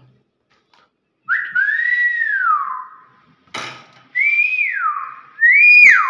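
Nias hill myna giving three loud whistles, each swooping up and then sliding down in pitch, the last one loudest. A sharp click comes between the first and second whistle.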